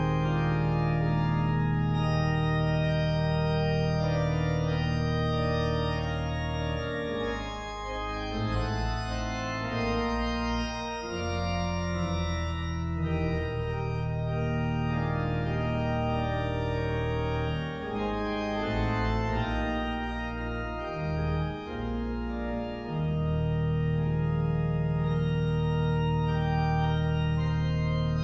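Organ playing sustained chords over long-held low pedal notes; in the middle the pedal drops out and the chords move more freely before the full sound returns.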